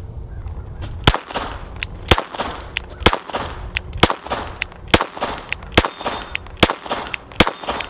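Glock 44 .22 LR pistol fired in a steady slow string of about eight shots, roughly one a second, each a short sharp crack. It is shooting Winchester 40-grain rounds and cycling through the string without a stoppage.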